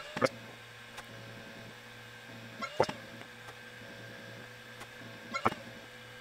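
Laser engraver at work on a cutting pass: a steady hum from its stepper motors and laser-module fan. Three times, about every two and a half seconds, there is a short sharp whir-click as the gantry jerks into a quick move.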